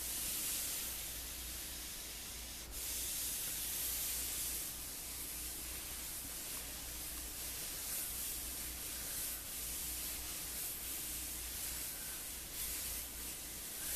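Iron fitted with a Teflon-coated iron shoe being glided back and forth over a shirt: a soft, steady hiss of the plate sliding on fabric.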